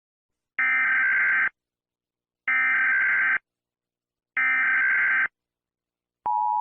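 Emergency Alert System SAME header: three bursts of buzzing, rapidly switching data tones, each about a second long with a second's gap between them, marking the start of an alert. Near the end, the steady two-tone EAS attention signal begins.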